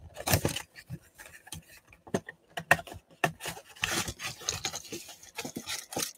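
Small cardboard trading-card box being opened by hand: the box scrapes and its flap rubs and tears, with scattered small clicks and rustles, as the foil-wrapped pack is worked out of it. The busiest scraping comes about half a second in and again around four seconds in.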